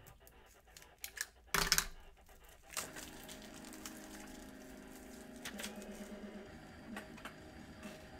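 A foil trading-card pack being handled and torn open, with crinkling and clicking and one short, loud rip about a second and a half in. After about three seconds it gives way to a faint steady hum.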